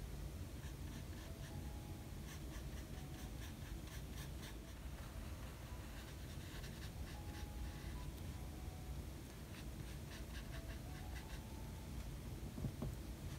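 Small paintbrush stroking gouache paint onto sketchbook paper: faint, repeated soft scratchy brushing over a low steady background hum.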